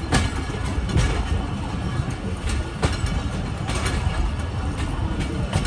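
Passenger train coach running on the track, heard beside an open window: a steady rumble with irregular sharp clacks of the wheels over the rails.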